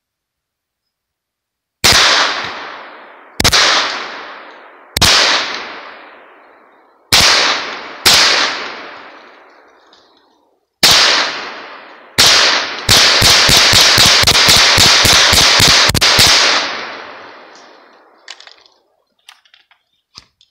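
Hi-Point 995TS 9mm semi-automatic carbine firing: seven single shots spaced one to three seconds apart, then a rapid string of about fifteen shots in three seconds. Each shot is followed by a fading echo.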